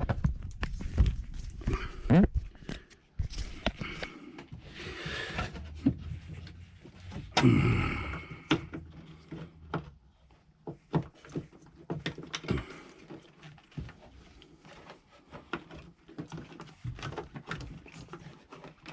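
Hands fitting a plastic fuse box back into place over the starter solenoid mount: scattered clicks, knocks and rattles of plastic against its mount, with a louder burst of scraping and handling about seven seconds in.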